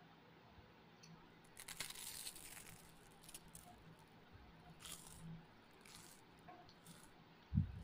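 Faint sounds of eating rice and fish curry by hand: fingers working the food on a steel plate, and chewing, with a crackly burst about two seconds in and a few soft clicks later. A short dull thump near the end is the loudest sound.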